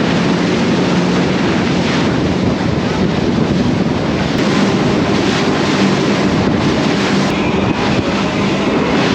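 Powerboat engines droning steadily at speed, with wind buffeting the microphone and water rushing past the hull.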